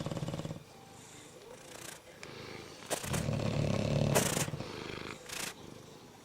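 Bulldogs snoring. One low, fluttering snore trails off just after the start, then a longer, louder one comes about halfway through, with short breathy hisses around it.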